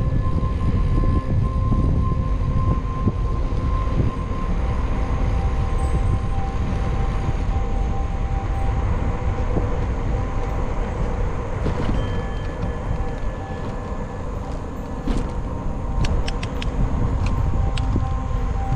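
Wind rushing over the microphone of a camera riding on a moving bicycle, with tyre and road noise and a faint steady whine. A few light clicks come near the end.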